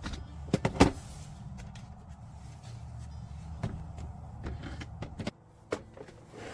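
A van's engine and road rumble run steadily, then cut off abruptly about five seconds in. There are a few sharp knocks near the start and a single click just after the rumble stops.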